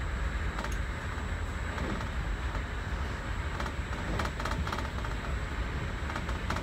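Passenger train carriage running noise heard from inside the cabin: a steady low rumble with a hiss of rolling noise and scattered faint clicks.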